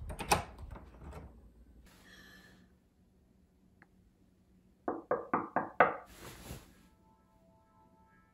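Five quick, sharp knocks in a row, about a quarter second apart, a little under five seconds in.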